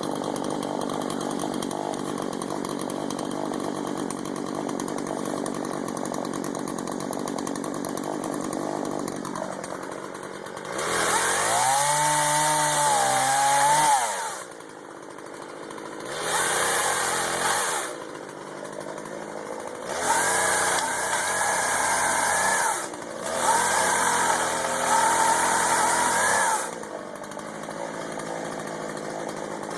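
Gasoline chainsaw engine idling steadily, then revved to full throttle four times, each burst lasting a few seconds before dropping back to idle.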